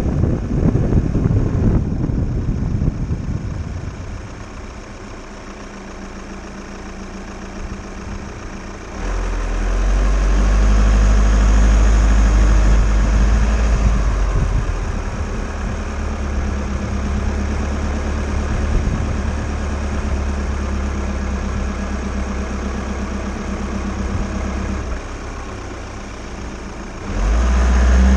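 A van's engine running at a steady low idle, with a low even hum that comes in abruptly about nine seconds in and steps up again near the end. Wind buffets the microphone in the first few seconds.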